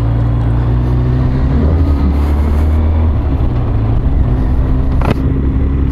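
Yamaha XJ900 Diversion's air-cooled inline-four engine running at a steady speed, with road and wind noise around it.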